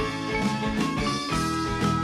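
Background music: an instrumental track with sustained notes over a steady beat.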